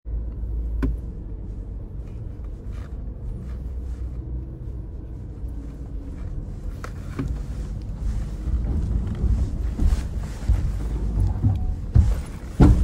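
Suzuki Jimny 5-door heard from inside its cabin, moving slowly over an off-road track: a low rumble with a few short knocks, heavier from about eight seconds in, and a loud clunk near the end.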